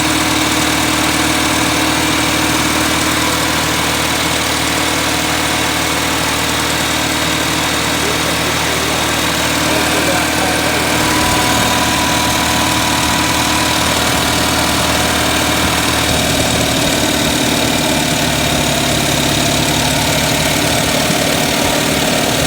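1979 Datsun 210's four-cylinder engine idling steadily, kinda high, with a misfire: it is not running on all its cylinders.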